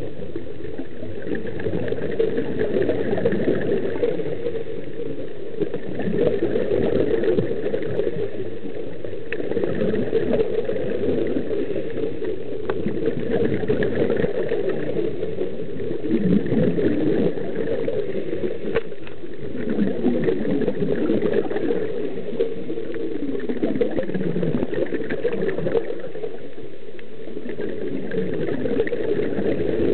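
Scuba regulator breathing recorded underwater: exhaled bubbles gurgling and rising in a surge every three to four seconds, one surge per breath, over a steady muffled wash of water.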